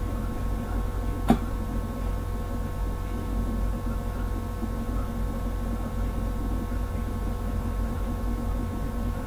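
Steady electrical hum and low rumble of background noise picked up by the microphone, with a single sharp click a little over a second in.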